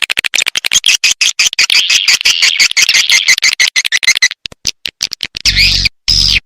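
Recorded swiftlet calls of the kind played to lure edible-nest swiftlets: a dense, rapid stream of high twittering chirps and clicks. About four seconds in it thins out, and near the end it comes in short chunks broken by silences, with a low hum underneath.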